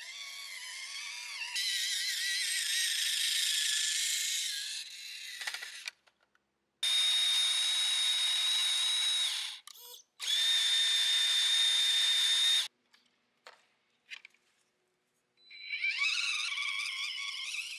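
Small electric drive motor and gears of a 1/24-scale FMS FCX24 Unimog RC crawler whining, wavering in pitch as it drives over rocks. Midway come two bursts of a steady high whine that stop abruptly, with the truck upside down and its wheels spinning free; near the end the whine comes back, rising in pitch.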